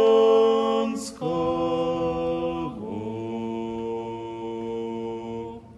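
Orthodox priests chanting a cappella in long held notes, a drawn-out closing cadence that steps down in pitch twice and then stops near the end.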